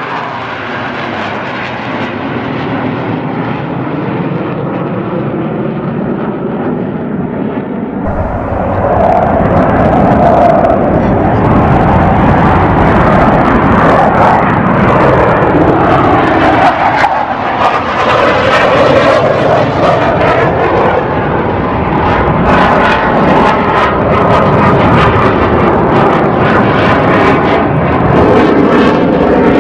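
Jet aircraft engines roaring as military display planes fly past overhead; the roar builds and gets much louder about eight seconds in, then stays loud with a slowly sweeping, phasing sound as the aircraft move across the sky.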